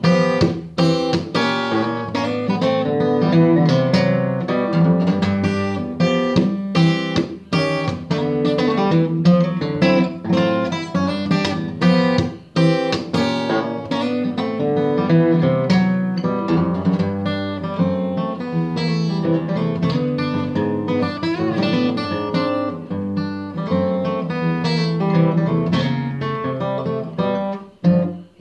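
Solo Martin D-1 steel-string acoustic guitar played fingerstyle: a swinging blues fingerpicking piece of plucked bass notes and melody. Near the end the playing drops away briefly, then a final chord is struck and left ringing.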